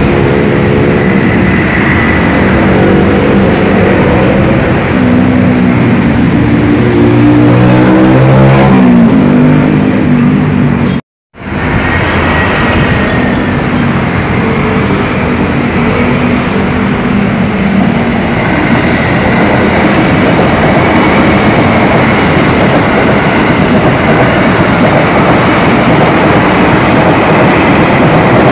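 Electric commuter train (KRL Commuter Line EMU) running under power: a motor whine whose tones step and rise in pitch over the first ten seconds. After a sudden cut, another train draws in and passes with a steady rush and rumble of wheels on rails.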